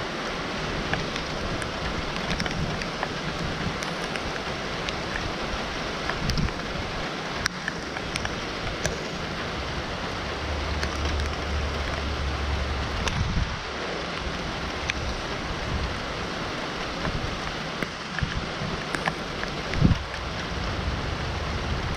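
Steady rain falling, with scattered drops ticking close by. A low rumble comes in for a couple of seconds about halfway through, and there is a short thump shortly before the end.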